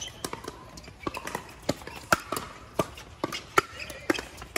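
Pickleball paddles striking the plastic ball in a rally: sharp pops at about two a second, irregularly spaced and of varying loudness, some from the neighbouring courts.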